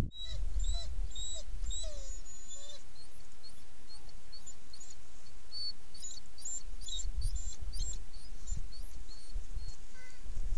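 Small birds chirping in many short, high calls, some sliding down in pitch, over a steady low wind rumble on the microphone.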